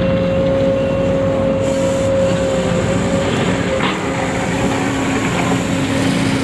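Radio-controlled model vehicle running: a steady small electric motor and gear whine over rough grinding noise.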